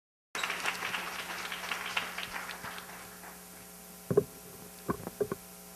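Audience applause fading out over about two and a half seconds, then a steady mains hum from the sound system with a few short vocal sounds.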